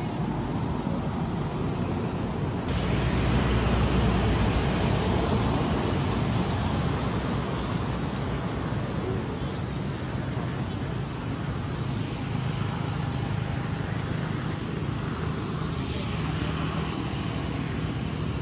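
Steady outdoor background noise, a low rumble with hiss, which gets a little louder about three seconds in.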